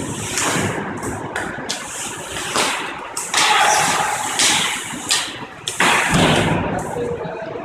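Ice hockey play on an indoor rink: skate blades scraping and carving the ice, in louder bursts about three and six seconds in, over a steady background hum.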